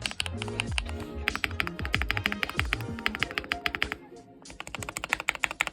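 Rapid typing on a tape-modded Redragon Kumara mechanical keyboard with lubed Akko CS Wine Red linear switches and PBT keycaps, a quick run of keystrokes that stops briefly about four seconds in and then resumes. Background music plays underneath.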